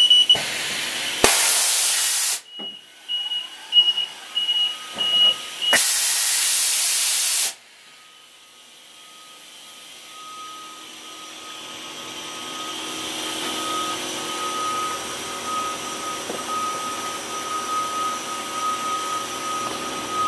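Two loud bursts of compressed air hissing, each one to two seconds long, with a fast pulsing electronic beep between them. After the second burst a softer hiss slowly builds while a lower electronic beep keeps repeating.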